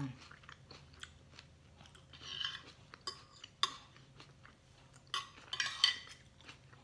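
Eating sounds: a spoon and fork scraping and clinking on a ceramic plate as rice is gathered, with chewing in between. The sounds come as a few short scrapes and sharp clinks, the loudest near the end.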